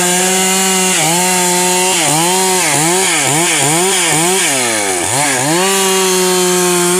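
Stihl MS 382 two-stroke chainsaw at full throttle cutting through a log. The engine note dips and recovers several times in quick succession as the chain bites and bogs under load, then holds a steady high rev and falls away right at the end as the throttle is released.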